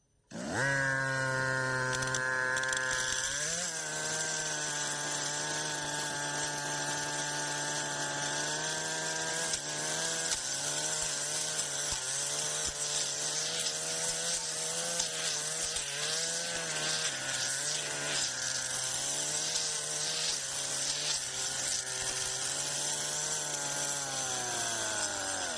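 Brush cutter engine revving up sharply from low about half a second in, then running at high speed, its pitch dipping and wavering under load. Near the end the throttle is released and the revs fall away.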